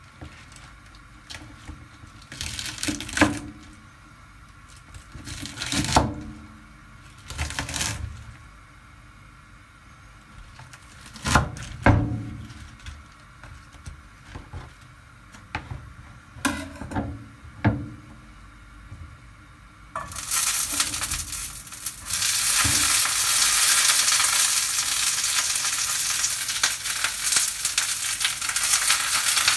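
Kitchen prep: a scattering of short knocks and clatters, then about two-thirds of the way through food hits a hot frying pan and starts sizzling loudly and steadily.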